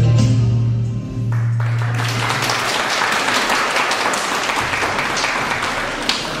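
The music of a song ends about two seconds in, and steady applause takes over, the children clapping along.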